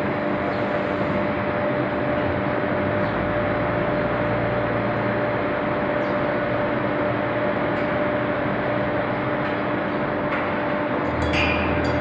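Induction billet heating line running: a steady, loud industrial hum with two held tones over a constant wash of noise. A low rumble swells about three seconds in and again near the end, with a few faint clicks.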